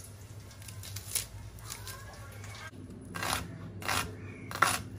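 Chef's knife cutting red onion on a wooden cutting board: a few separate crisp cuts, the loudest three in the second half, about half a second apart.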